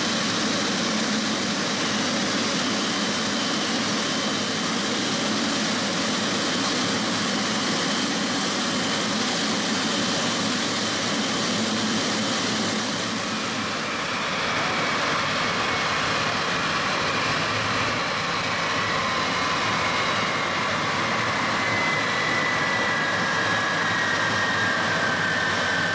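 Steady jet turbine noise: a dense rushing hum with a high whine. About halfway through, a second whine joins and slowly falls in pitch.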